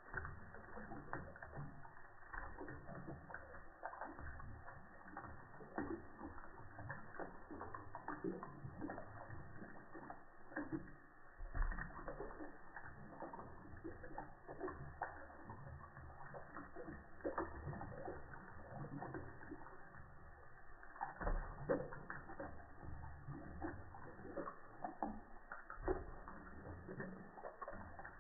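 Cat lapping water from a thin stream running from a kitchen tap, with irregular wet clicks from its tongue over the trickle. The sound is slowed down with the slow-motion footage, so the laps and the water are deep and drawn out.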